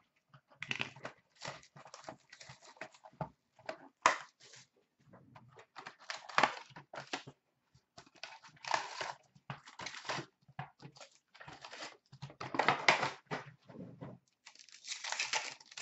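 Hands opening a 2016-17 Upper Deck SP Authentic hockey card box and pulling out and stacking its wrapped packs: irregular crinkling, tearing and rustling of card and wrappers, with a few soft handling thuds.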